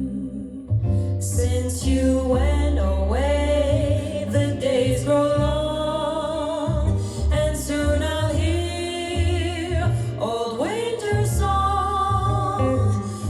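Music played back through Buchardt A10 loudspeakers: a singing voice with wavering held notes, coming in about a second in, over deep sustained bass notes.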